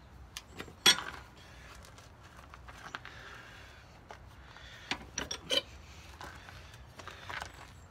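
Sharp metal clanks and clinks of a steel flat bar and a bench vise as the bar is worked in the vise jaws and the vise handle is turned: one loud clank about a second in, a quick run of clinks about five seconds in, and a few lighter taps near the end.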